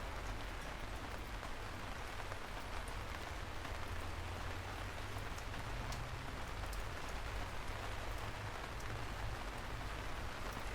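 Steady rain falling, an even hiss with scattered sharp drop ticks and a steady low rumble underneath.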